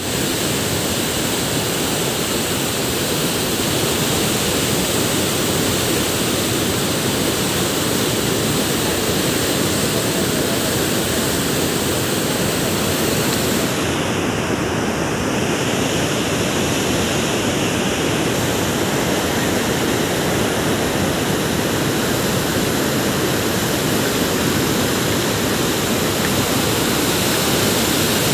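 Water pouring through the open spillway gates of a dam and churning in the river below: a steady rush of water.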